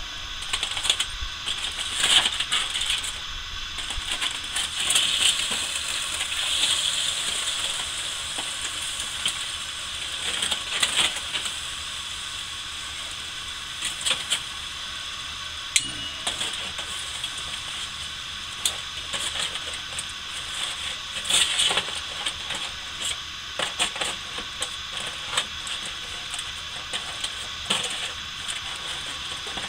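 Aluminium foil crinkling and rustling in irregular bursts as a foil-wrapped rack of ribs is pulled open by hand, with a few light clicks of metal tongs.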